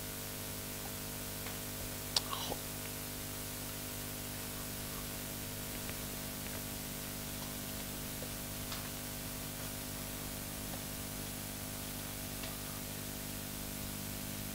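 Steady hiss and electrical hum of room tone, with a short click about two seconds in and a few fainter ticks later.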